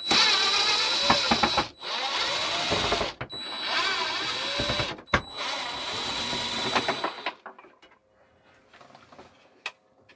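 Cordless impact driver backing out four screws from a plastic vent-fan cover: four runs of motor whine, each lasting about two seconds and rising and falling in pitch, with short pauses between them. Only faint handling noise follows.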